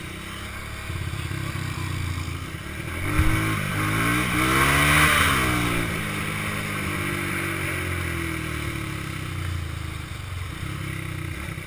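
ATV engines running while riding on a dirt track. One engine revs up and back down between about three and six seconds in, with rushing noise over the top at that point.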